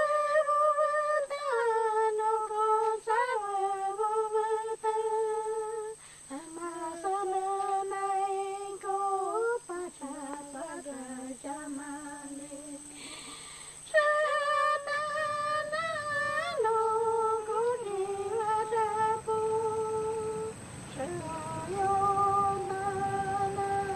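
A shaman's chant: a single high voice hums and sings long held, wavering notes in slow phrases, swooping between pitches and broken by short breaths. A low steady rumble joins a little over halfway through.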